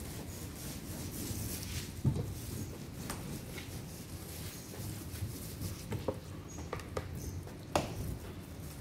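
Long-handled roller working polyester resin into wet fibreglass mat on a boat hull: soft wet patter with scattered clicks and knocks, the sharpest about two seconds in and another near the end.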